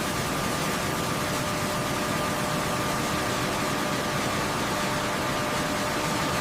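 Steady industrial machinery noise, an even rushing hum with a faint high whine running through it.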